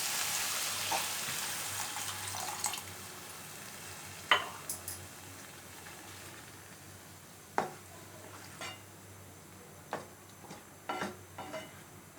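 Sizzling of hot chicken in a frying pan dying down over the first few seconds as a cup of water hits the pan, followed by a few sharp knocks of a spoon against the pan while stirring.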